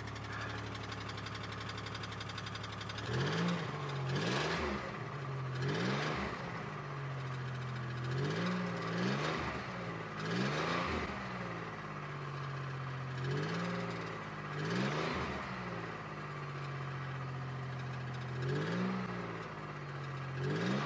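2002 Chevy Malibu's 3.1 L V6 running after a start from its intermittent no-start condition. It idles with about ten brief rises in engine speed that fall back each time.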